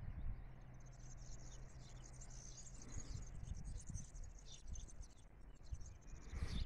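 Faint high-pitched chirping from small animals, dense and irregular, over a low steady hum.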